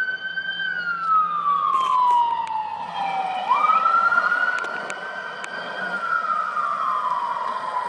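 Ambulance siren on wail: the pitch rises quickly, holds high and then slides slowly down, about twice. It grows fainter near the end as the ambulance pulls away.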